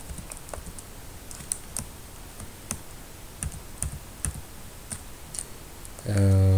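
Computer keyboard typing: single keystrokes in a slow, irregular run, with gaps between clicks.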